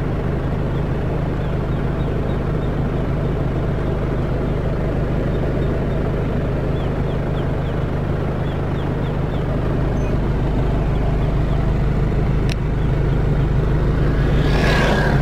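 Isuzu Panther's engine running steadily with a low, even hum. There is a single click about twelve seconds in, and a short rush of hiss near the end.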